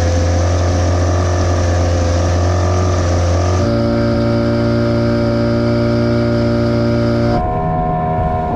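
Yamaha 15 hp two-stroke outboard motor running steadily under way, pushing a small inflatable boat. The engine's drone is loud and steady, and its pitch jumps abruptly twice, about a third of the way in and near the end.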